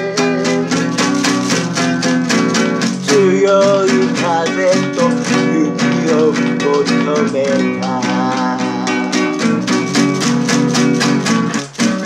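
Classical guitar with a capo strummed in a steady rhythm, with a man singing along.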